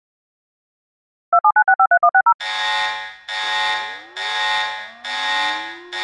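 Emergency alert attention signal: about a second in, a fast run of about nine short beeps alternating between two pitches, then a harsh buzzing alarm tone pulsing about once a second. Beneath the pulses an air-raid siren winds up in pitch and settles on a steady tone near the end.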